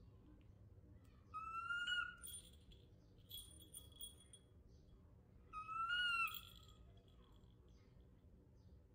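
Baby macaque giving two high, clear coo calls about four seconds apart, each sliding slightly upward. Between the calls there is a fainter, thin, bell-like ringing.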